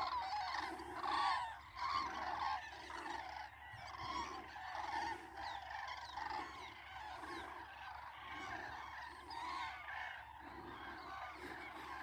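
A large flock of common cranes calling, with many calls overlapping in a continuous chorus.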